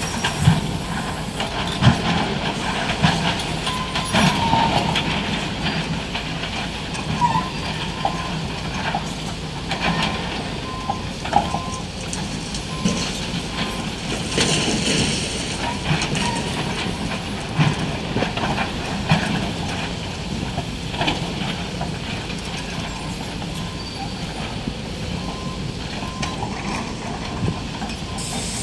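SANY excavator's diesel engine running steadily under load while it breaks down a concrete column, with knocks and cracks of breaking concrete and falling debris scattered throughout.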